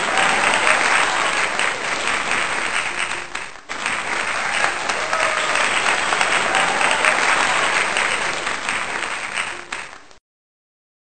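Applause: many hands clapping at once, with a brief break a little over three seconds in, stopping abruptly about ten seconds in.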